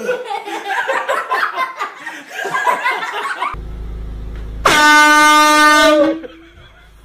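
A handheld air horn gives one loud blast of about a second and a half at a steady pitch, dipping slightly as it cuts off. It is a prank wake-up on a sleeping man. It follows a few seconds of low voices and giggling.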